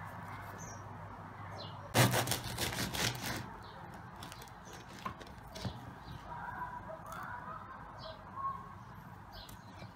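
Serrated bread knife sawing through the crust of a homemade baguette, a burst of quick rasping, crackling strokes about two seconds in, then a couple of light knocks on the wooden board. Birds chirp throughout.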